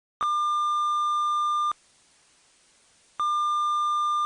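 Emergency-alert attention tone: two long, steady, high-pitched beeps of about a second and a half each, the second starting about three seconds in. It is the tone that introduces the alert message.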